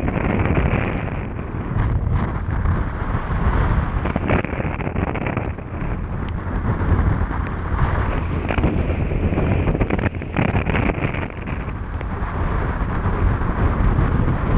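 Wind buffeting the microphone on a small outboard boat running at speed across choppy water: a loud, dense rushing that swells and dips, with the motor and water noise underneath and a few short knocks as the hull meets the chop.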